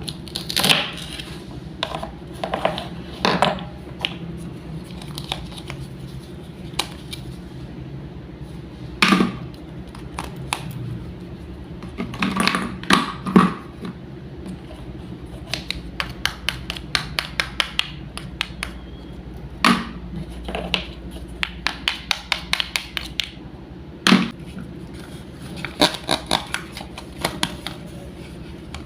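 Toy wooden fruits and vegetables being cut apart and handled: sharp wooden clicks and knocks, some longer scratchy strokes, and a run of quick light taps about halfway through.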